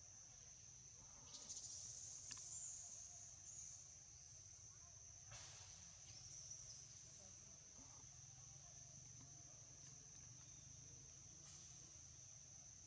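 Faint, steady, high-pitched drone of insects in the forest, with a few short, louder noises between about one and four seconds in and again around five to seven seconds in.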